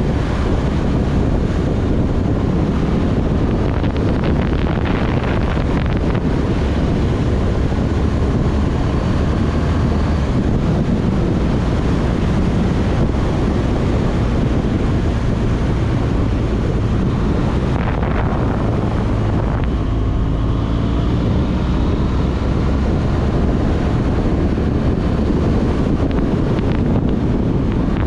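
Heavy wind rush over the microphone of a BMW R1200GS Adventure LC on the move, with its flat-twin boxer engine running underneath; the engine note climbs a little past the middle.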